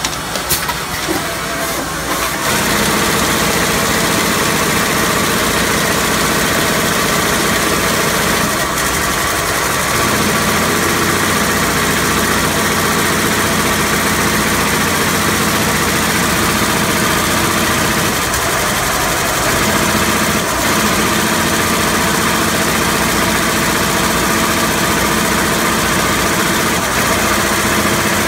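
Fuji CP-7 turret chip shooter running a test circuit board: a few clicks, then about two seconds in the rotating placement head gets going with a steady, loud mechanical whir carrying several held tones.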